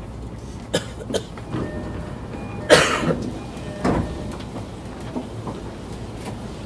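Inside a JR East E233-series commuter train car: a steady low rumble, broken by a few short sharp noises, the loudest a little under three seconds in.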